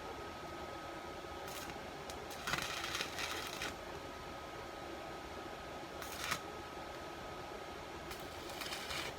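Inverter stick-welding arc crackling in four short bursts of about a second or less, as rod welds or tacks are laid on a broken motorcycle stand, over a faint steady high whine.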